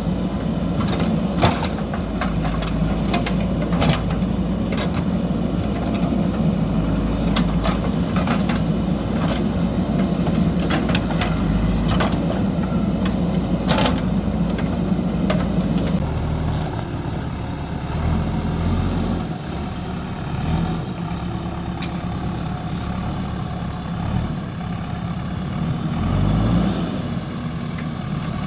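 JCB backhoe loader's diesel engine running, with sharp knocks and clicks over the first half, then the engine sound dropping lower and rising and falling from about halfway on.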